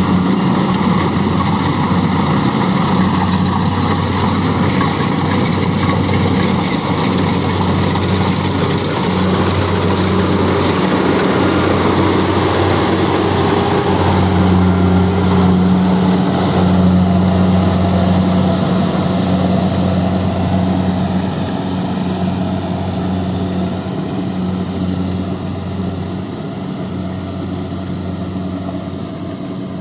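Heavy rice-harvesting machine running steadily: a deep engine hum under broad mechanical noise, growing somewhat quieter over the last several seconds.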